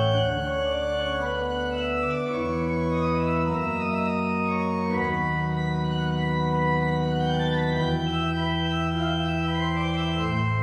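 Church organ playing the postlude: slow, held chords over a deep bass line, the chords changing every few seconds.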